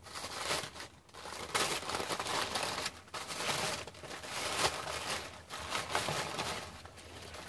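Packaging rustling and crinkling as gift items are handled and unwrapped, with irregular small clicks and scrapes.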